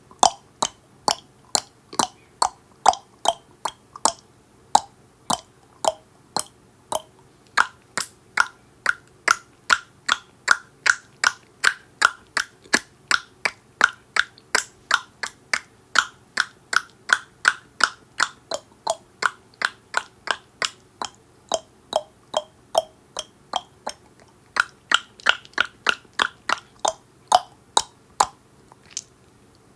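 A person's tongue clicking against the roof of the mouth, sharp single clicks repeated steadily at about two to three a second. The hollow pitch of the clicks drifts higher and lower over the run.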